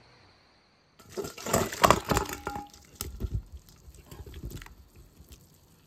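Boiled potatoes tipped from a steel pot into a steel bowl of water, splashing and knocking against the metal. The splashing starts about a second in, is loudest over the next two seconds, then tails off into a few smaller splashes and knocks.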